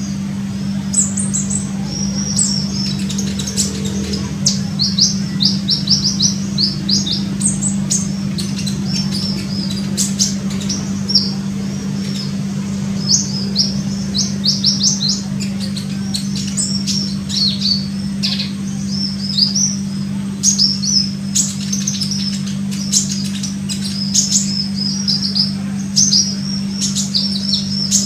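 Olive-backed sunbird singing: bursts of rapid, high-pitched chirps and short trills, repeated every second or two, over a steady low hum.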